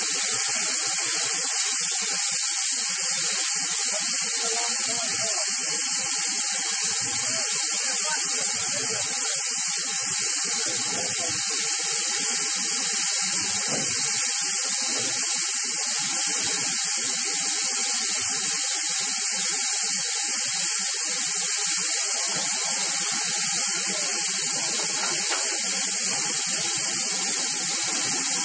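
Steady hiss of steam from a standing GWR Large Prairie 2-6-2 tank locomotive, No. 5199.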